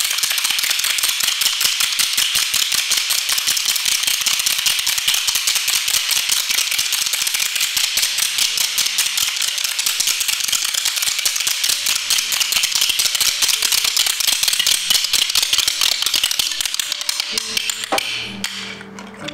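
Many wooden spoons clacked together rapidly by a group of performers, a dense continuous clatter. Near the end it thins to separate taps as a few pitched notes of music come in.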